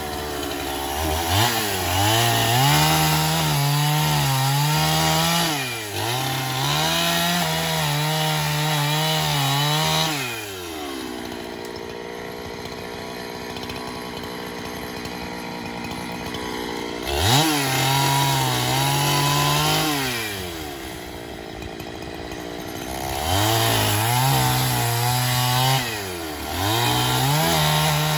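Two-stroke chainsaw cutting timber for posts, revved to full throttle about five times in bursts of a few seconds, its pitch wavering as the chain takes the load. Between cuts it drops back to idle, with one long idle stretch in the middle.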